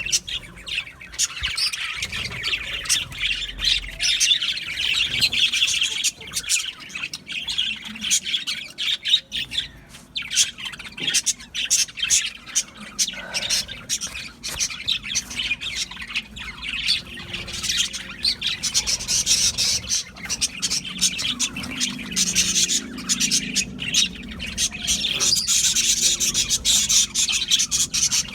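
Budgerigars chattering and chirping continuously, a dense run of quick warbled chirps and squawks.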